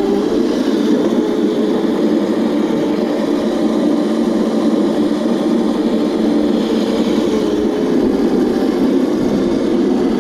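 Razor Crazy Cart electric drift kart running, a steady motor hum with wheel noise under it.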